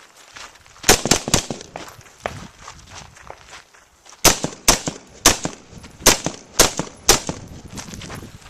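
Rifle shots fired in strings: a quick group of three about a second in, then after a pause a steady string of about eight shots roughly half a second apart.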